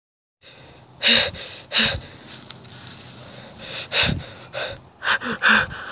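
A person panting hard, about six loud gasping breaths with a pause in the middle: the sound of someone out of breath.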